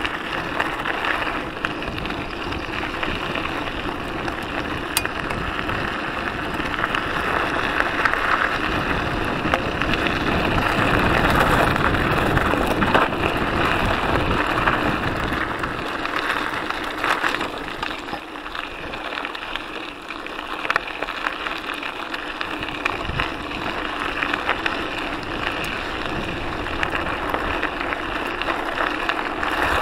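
Mountain bike rolling over a gravel dirt trail: steady tyre crunch with the rattle and clicks of the bike over the rough surface, mixed with wind rushing on the microphone. The low rumble eases for a few seconds past the middle, then comes back.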